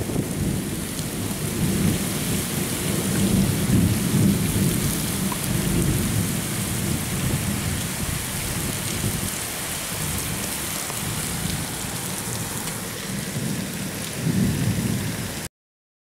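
Strong cyclone wind gusting, buffeting the microphone with a low rumble that swells and fades, over a steady hiss of wind through trees and wires. The sound cuts off suddenly near the end.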